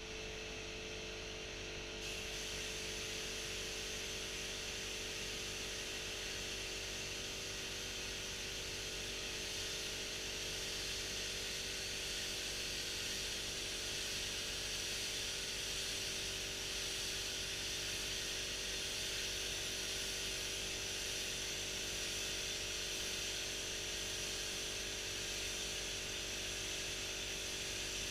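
Steady hiss of compressed air from a gel coat spray gun, which gets louder about two seconds in and then holds, over a steady low hum.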